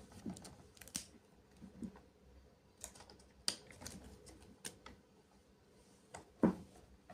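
Scattered light clicks and crackles of hands handling a toy's plastic packaging, with one louder knock about six and a half seconds in.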